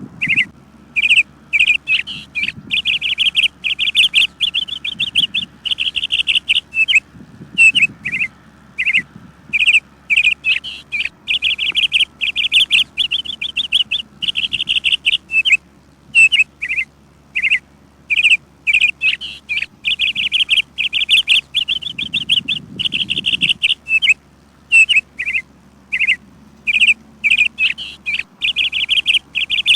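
Songbird chirping almost without pause: quick single chips mixed with short, rapid trilled phrases about a second long.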